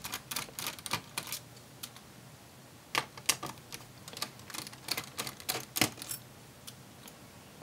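Small Phillips screwdriver backing out the tiny screws of a laptop battery bracket: irregular light clicks and ticks of the driver tip in the screw heads and the small screws being handled, in little clusters.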